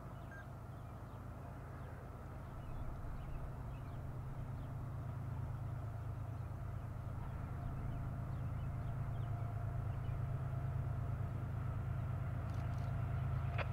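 Diesel freight train approaching: a steady low engine rumble with faint steady whining tones above it, growing louder throughout. A few sharp clicks start right at the end.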